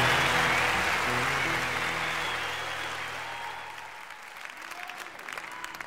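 Audience applause on a live music recording, fading out over the song's last held chord; a few scattered claps remain near the end.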